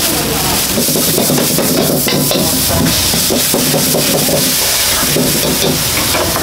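Stir-frying in a wok: oil and food sizzle steadily while a metal ladle stirs, scrapes and knocks against the pan many times.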